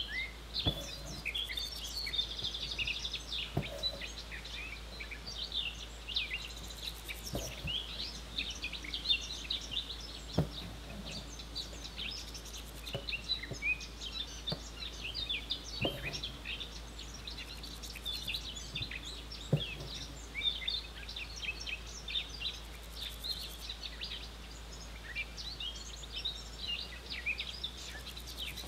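Many small birds chirping continuously, with a few knocks now and then.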